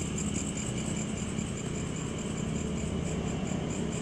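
Insects chirping in a fast, even pulse, about five pulses a second, over a low, steady rumble.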